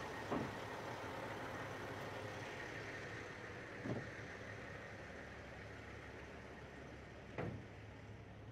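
Crane truck's engine idling with a steady low hum. Three short knocks stand out, near the start, about four seconds in and near the end.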